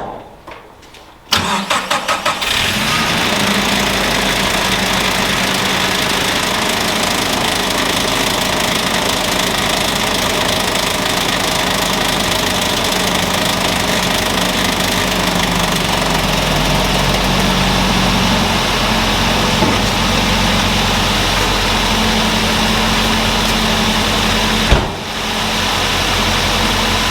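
Nissan Frontier pickup engine cranking in quick pulses about a second in, catching, and settling into a steady idle. A single sharp knock near the end.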